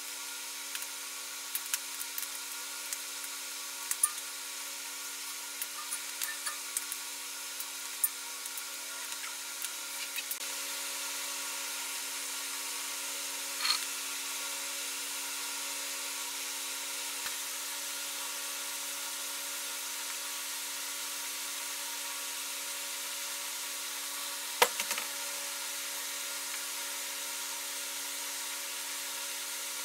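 Paintbrush working paint onto a cast-metal pump cover and pulley, with light scattered taps and clicks in the first ten seconds and one sharp knock near the end. A steady hum of several tones runs underneath.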